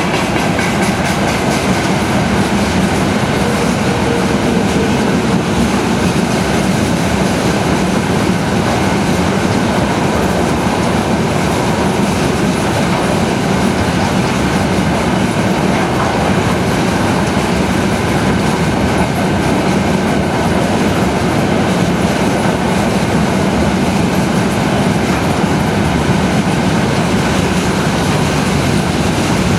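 Freight train behind a VL85 electric locomotive rolling past at speed: steady, loud rumble and clatter of wheels on the rails.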